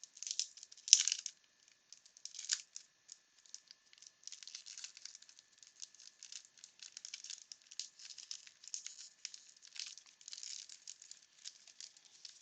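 Wax-paper wrapper of a 1992 Bowman baseball card pack being torn open and crinkled, with a few sharp bursts in the first three seconds. Then a steady light crackle as the wrapper and cards are handled.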